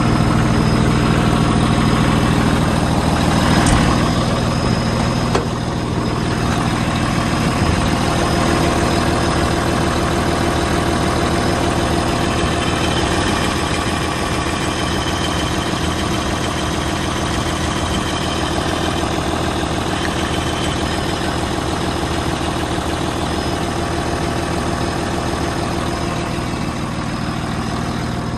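2012 Cat D6T XL dozer's diesel engine idling steadily, heard close up at the open engine compartment, a little louder for the first few seconds.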